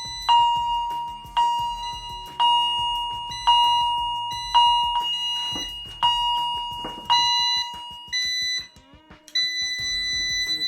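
Fire alarm chime striking about once a second, each stroke ringing out and fading. Near the end it changes to two short beeps and then a steady higher tone.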